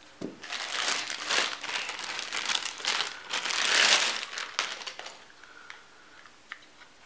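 Packaging crinkling and rustling as accessories are handled and pulled out of their wrapping, loudest about four seconds in and dying away to a few light ticks near the end.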